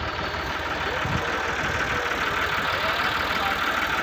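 Massey Ferguson 260 tractor's diesel engine running steadily.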